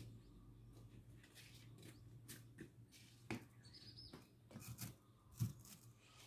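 Near silence: faint outdoor ambience with a low steady hum, scattered soft clicks and a few faint, brief bird chirps.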